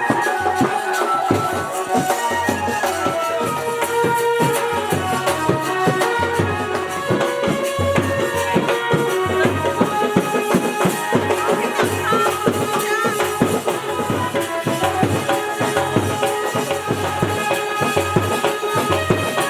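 Music with a busy, steady percussion beat under sustained melodic lines.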